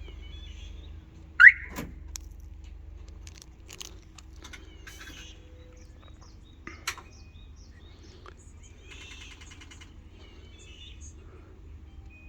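An aftermarket truck alarm and remote-start unit runs its remote-start sequence: one loud short chirp rising in pitch about a second and a half in, then scattered clicks and a brief burst of rapid ticking, before the engine is cranked.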